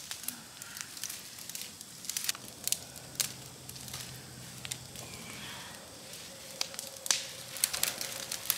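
Brush pile of dry branches burning, crackling with irregular sharp pops that come thicker near the end.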